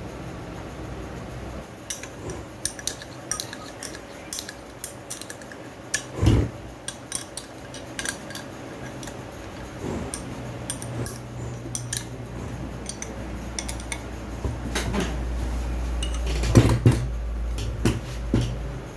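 Irregular metal clinks and taps of spanners, bolts and housing parts as a turbocharger is put back together and tightened. A low hum builds up in the second half.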